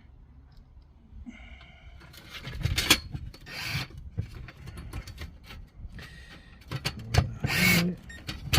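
Short scraping and rubbing sounds with scattered clicks as small metal parts and screws are handled and fitted into a stove door's glass retainers.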